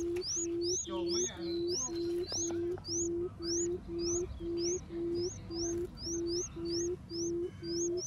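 Barred buttonquail giving its low 'um' hooting call: one short, even-pitched note about twice a second, repeated without a break. This is the call used as a lure to draw other buttonquails in. Thin high rising chirps repeat alongside.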